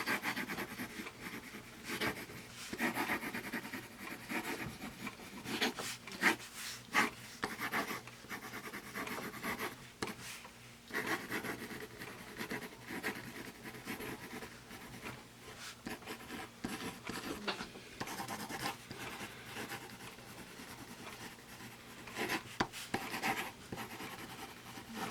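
Pencil writing on paper: the lead scratches in irregular strokes with short pauses between words.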